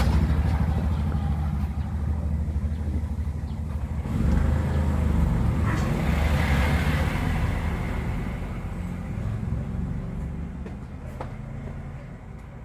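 A motor vehicle's engine rumbling, swelling about four seconds in and then slowly fading, like a vehicle passing by.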